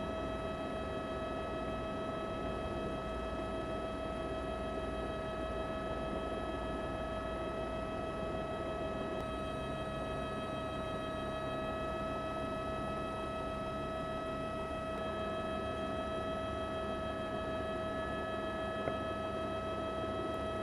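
Steady drone of a helicopter's engine with a constant high whine over a rushing noise, unchanging in pitch.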